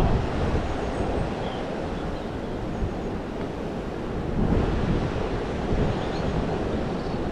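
Wind buffeting the microphone: a steady, rumbling noise that swells a little partway through.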